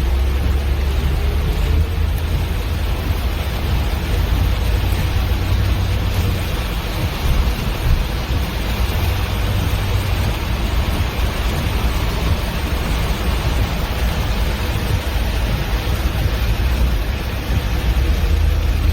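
Flash-flooded river water rushing steadily, a dense hiss with a heavy low rumble.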